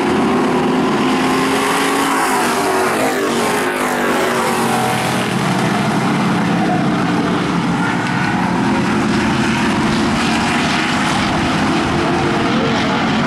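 Super Street stock cars racing in a pack, several engines running hard at once, with their pitch sliding as the cars sweep past about two to five seconds in.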